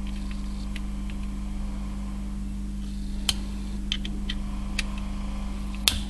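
Small, scattered clicks of needle-nose pliers gripping and levering at the thin metal housing of a microwave turntable motor as its coil is worked out, over a steady low hum.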